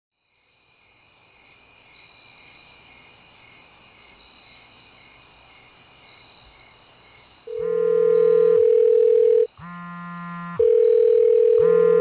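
A steady, high insect chorus fades in. About seven and a half seconds in, a phone starts ringing loud over it with an electronic ringtone in rings of about two seconds: an incoming call.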